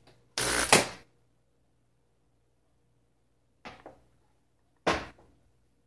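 Water pump of a disassembled Nespresso Vertuo Next run in three short bursts, each spurting water from its outlet, the first the longest and loudest; the pump is working.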